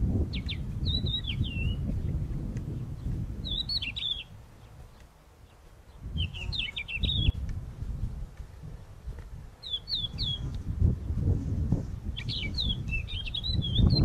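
A small songbird gives short bursts of quick high chirps and down-slurred twittering notes, five phrases a couple of seconds apart. Under it is a low rumble of wind on the microphone that drops away for a moment about a third of the way in.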